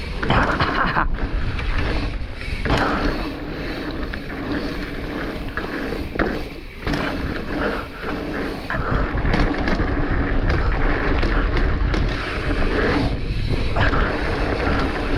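Mountain bike riding down a dirt trail: tyres rolling and the bike rattling over bumps, with wind buffeting the microphone.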